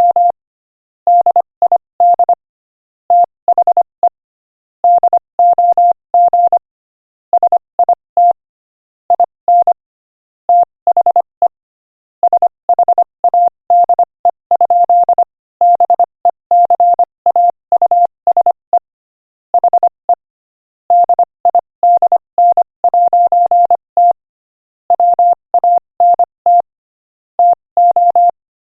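Morse code sent at 25 words per minute as a single steady beep keyed on and off in quick short and longer marks, grouped into letters and words with short pauses between them.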